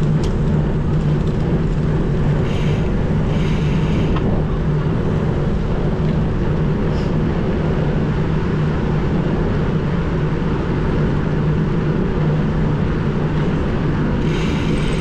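Steady wind noise buffeting an action camera's microphone while riding a bicycle, a loud low rumble that never lets up.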